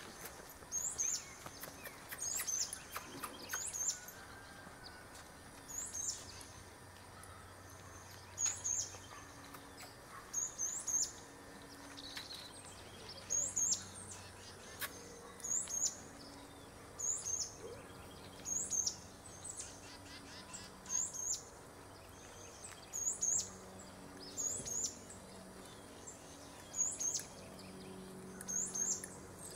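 A small bird repeating a short, high chirp about once a second.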